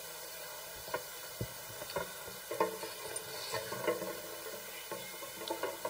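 Faint, irregular clicks and light taps over low background noise, about a dozen in all, with a duller knock about a second and a half in and a quicker cluster near the end.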